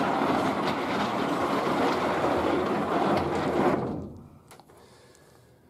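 A carpeted plywood truck bed slider rolling on conveyor ball rollers as it is pushed along the truck bed: a steady rolling rumble that dies away about four seconds in.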